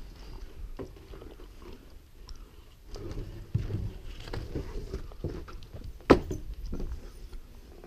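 Boots crunching and scuffing on a snow-dusted wooden deck, with scattered light knocks and one sharp knock about six seconds in.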